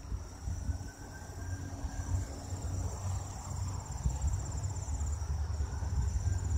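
Crickets chirping in a steady, fast-pulsing high trill, over a constant low rumble.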